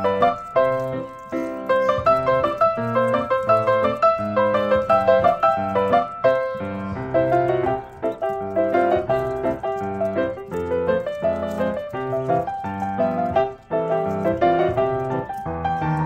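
Background piano music: a steady flow of quick notes.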